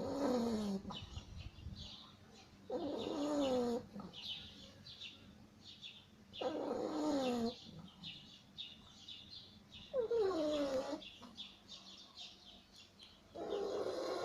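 Beagle snoring: five pitched snores about every three and a half seconds, each lasting about a second with a pitch that slides downward.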